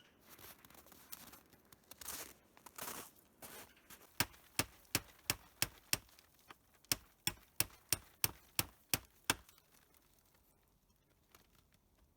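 Plastic sheeting rustling, then a quick run of about fourteen sharp hammer blows, roughly three a second, with a short break in the middle: nails being driven to fix the shelter's roof.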